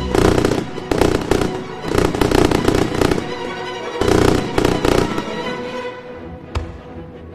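Aerial fireworks bursting in a quick series of bangs and crackles over background music, thinning out after about five seconds with one last sharp pop near the end.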